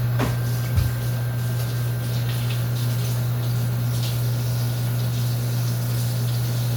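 A steady low-pitched machine hum, with a short click and a low knock in the first second.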